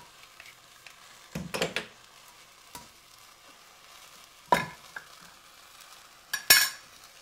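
Metal food can being opened with a hand-held can opener: a short cluster of clicks and scrapes about a second and a half in, then sharp metal clinks about halfway through and a louder pair near the end as the cut lid comes off and the can is handled.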